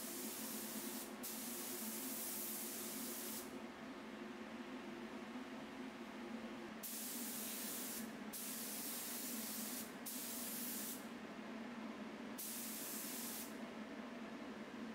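Compressed-air 3M Performance spray gun spraying a coat of thinned lacquer. It hisses in about six short passes, one to two seconds each, starting and stopping sharply as the trigger is pulled and released, with a longer pause midway. A steady low hum runs underneath.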